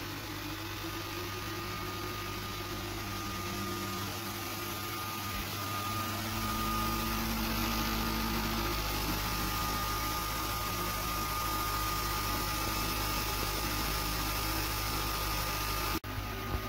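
Sculpfun S30 Ultra laser engraver running as it cuts plywood: a steady mechanical hum and hiss with a thin, high, steady whine, and low tones that shift as the head moves. The sound breaks off for an instant near the end.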